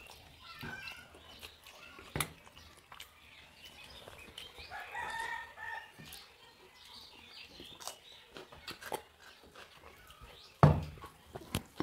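Eating by hand from steel plates: soft clicks of fingers mixing rice and chewing, with a brief pitched call about five seconds in. Near the end a steel tumbler is set down on the table with one sharp, loud knock, followed by a few lighter clinks.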